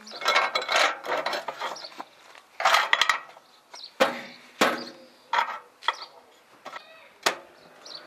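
Rustling and scraping, then several sharp knocks and clatters as an oven-mitted hand reaches into a microwave and handles the plate holding the heated plastic domino pieces.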